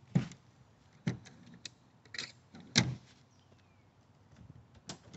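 A handful of sharp clicks and clunks as a Subaru Baja's rear latch is worked and its cargo-bed cover is opened. The loudest clunk comes just under three seconds in.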